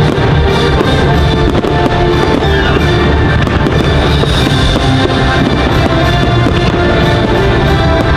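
Loud show soundtrack music playing under a fireworks display, with many firework bursts banging and crackling throughout.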